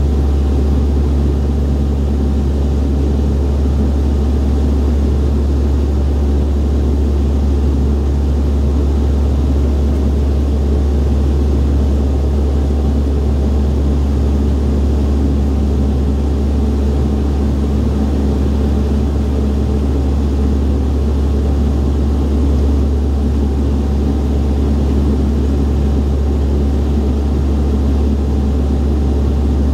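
Steady low drone of a Dash 8-Q300's Pratt & Whitney Canada PW123 turboprop engines and propellers in flight, heard inside the passenger cabin.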